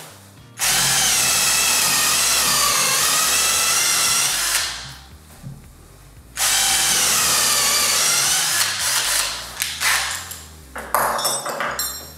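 Total TDLI2002E 20 V cordless drill driving a 12 mm wood drill bit into a timber beam in second gear with the clutch set for drilling. There are two long runs of motor whine with the bit cutting, the pitch wavering as the bit loads up, and a short pause between them. Near the end comes a string of shorter, broken bursts.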